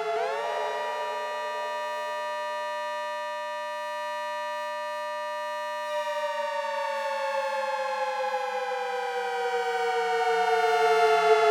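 Synthesized ACA Hurricane 130 civil-defense siren made from sawtooth waves, sounding a chord of tones. It winds up quickly, holds a steady pitch for about six seconds, then slowly winds down, and starts winding up again at the very end: an attack-signal cycle.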